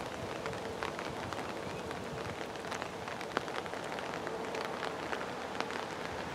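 Steady rain falling, with many scattered drops ticking on surfaces.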